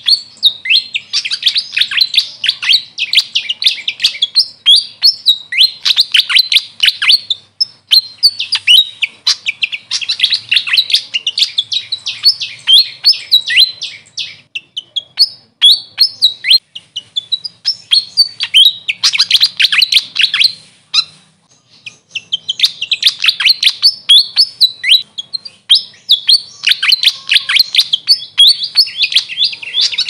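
Fantail singing: fast runs of high, squeaky chirps in phrases a second or two long, repeated over and over with short breaks between them.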